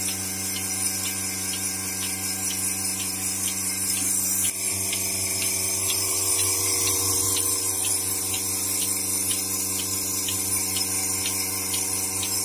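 Bucket milking machine running: its electric vacuum pump hums steadily while the pulsator clicks at a quick, even rhythm as the teat cups milk a cow.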